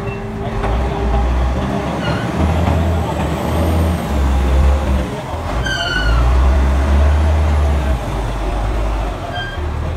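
Diesel engine of a large container-handler forklift running as the machine drives past, its low rumble surging louder and easing off several times. A short squeal sounds about six seconds in.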